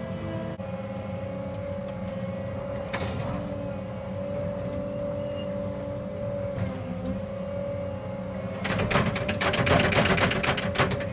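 Cat 306 excavator's diesel engine running steadily, with a constant hydraulic whine. In the last couple of seconds comes a rapid run of sharp cracks and snaps, as brush and limbs break under the machine.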